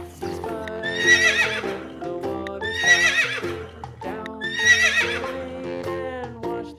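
A horse whinnying three times, each a shaky, high call under a second long, over background music.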